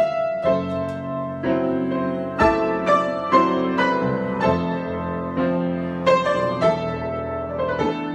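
Improvised solo piano: notes and chords struck every half second or so, each left to ring on into the next.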